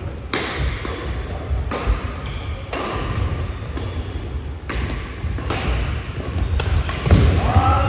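Badminton rally: rackets striking the shuttlecock in quick succession, sharp hits a fraction of a second to a second apart, with footfalls thudding on the wooden court floor in a reverberant hall. Shoes squeak briefly in the first few seconds, and a voice calls out near the end.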